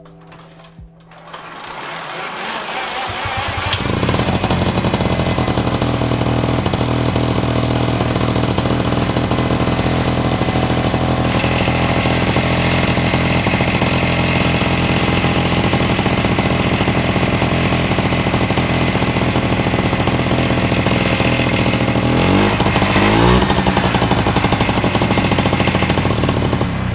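1978 Piaggio Ciao moped's small two-stroke engine coming up to speed in the first few seconds as it is pedal-started, then running loud and steady through a freshly fitted Jamarcol ('Jammy') budget performance exhaust, much more obnoxious. Its pitch wavers briefly near the end.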